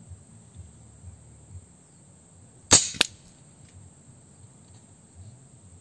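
PCP air rifle with an M22 barrel firing a single 20.52-grain Rifle slug at low velocity, about 239 metres per second: one sharp crack a little under three seconds in, then a second, slightly fainter crack about a third of a second later. Steady insect hum throughout.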